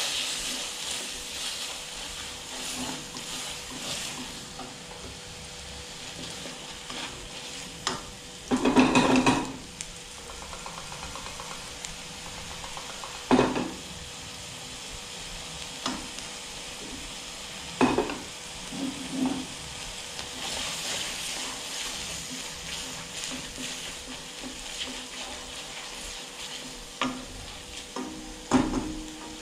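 A stir-fry sizzling in a wok as it is stirred, with several loud scrapes and knocks of a utensil against the wok. The longest scrape is about nine seconds in.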